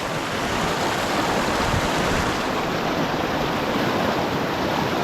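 River rapids rushing, a steady loud roar of whitewater around the raft.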